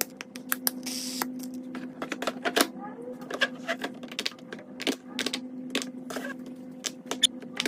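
Fidget toys being clicked: a run of sharp, irregular clicks, several a second, over a steady low hum.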